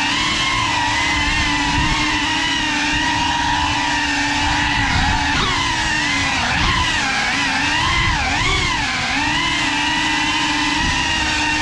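Brushless motors and ducted propellers of a GEPRC 35 cinewhoop drone whining steadily in flight, with several pitches together. The whine wavers up and down with throttle changes, most between about five and nine seconds in.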